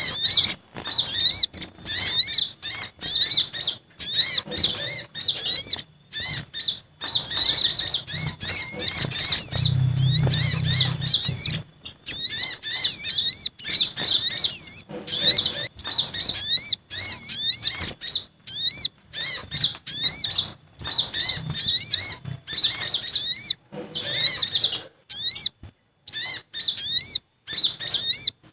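Sunbirds (sogok ontong and kolibri ninja) calling excitedly on a bird-trapping lure recording. Rapid high, thin chirps, each rising and falling, come several a second in quick runs with short breaks between them.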